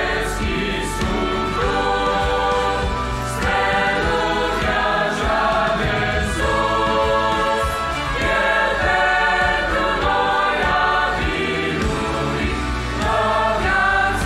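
Mixed choir of young men and women singing a hymn in Romanian, in several parts with long held chords.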